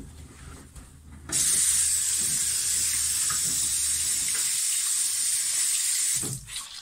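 Bathroom sink tap running, water pouring over a sponge held under it to rinse it. The tap is turned on about a second in and shut off near the end, with a few faint handling sounds before it opens.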